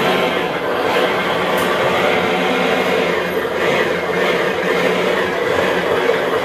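Simulated engine sound from a 1/10-scale RC Defender D90's electronic sound module, running steadily without pauses.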